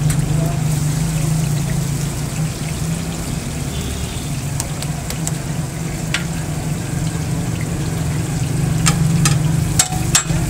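Oil sizzling on a large flat griddle as raw chapli kabab patties fry, over a steady low hum. A few sharp clicks come near the end.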